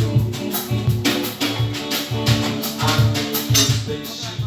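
Bossa nova music: an instrumental passage with guitar, drums and shaker keeping a steady beat.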